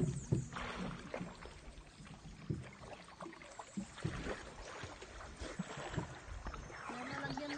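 Water lapping and sloshing against a wooden outrigger boat on calm water, with scattered soft knocks and splashes.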